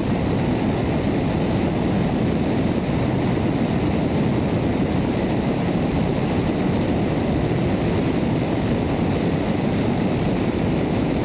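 Cessna 177RG Cardinal in flight: steady drone of its four-cylinder Lycoming engine and propeller mixed with airstream rushing over an exterior under-wing camera. The sound cuts off abruptly at the end.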